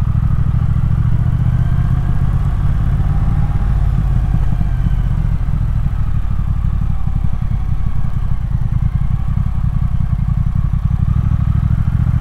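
Triumph Thruxton R's 1200 cc parallel-twin engine running as the motorcycle rides a tight, winding road, a low pulsing engine note that rises and falls with the throttle.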